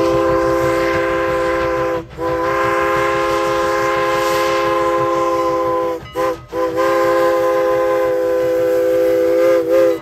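Three-chime Pennsylvania Railroad–style steam whistle on Strasburg Rail Road steam locomotive No. 89, sounding one steady chord. A long blast breaks about two seconds in, a second long blast follows, then a short toot about six seconds in and a final long blast that cuts off at the end. Together with a long blast just before, this is the long-long-short-long grade-crossing signal.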